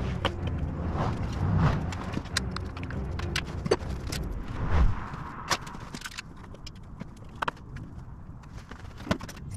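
Irregular clicks, taps and knocks of hands and tools working on a motorcycle, with a low hum in the first half and a heavier thump about five seconds in.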